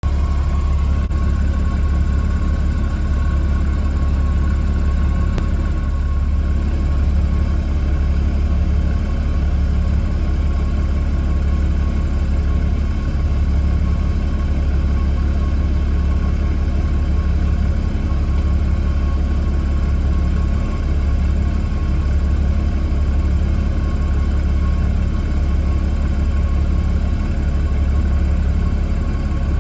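Steady low engine rumble heard from inside a vehicle cab, even and unbroken, with a faint steady whine above it.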